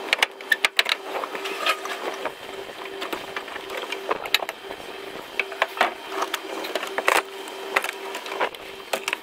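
Irregular clicks, knocks and rattles of fittings and covers being handled and pulled off inside a truck cab, over a steady faint hum.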